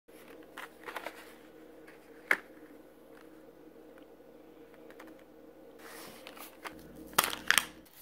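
Mechanical pencils in plastic blister packs handled and set down on a cutting mat: light taps and clicks, with one sharp click about two seconds in. Near the end, loud crinkling and tearing as the card-and-plastic packaging is pulled open.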